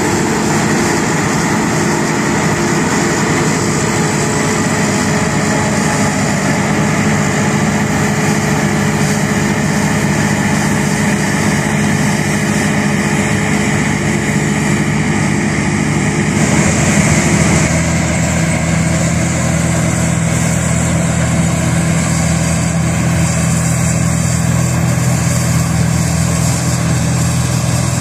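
Combine harvester's engine and threshing machinery running steadily while harvesting oats. About 16 seconds in, the sound changes abruptly to another combine running, with a heavier, lower hum.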